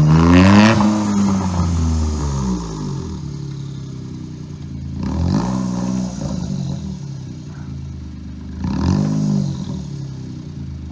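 Suzuki Jimny JB23's small three-cylinder turbo engine revving up and falling back three times, settling lower in between.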